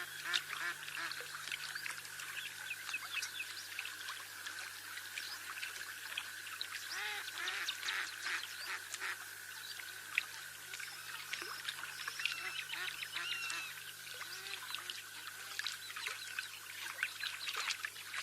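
A flock of birds calling, many short calls overlapping throughout.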